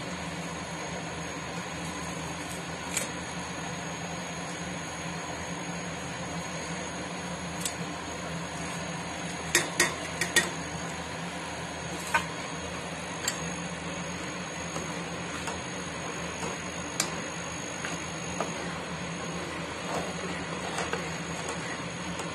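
A pot of thick dal bisibelebath boiling on a stove: a steady low hum under scattered sharp clicks and pops, with four in quick succession about halfway through.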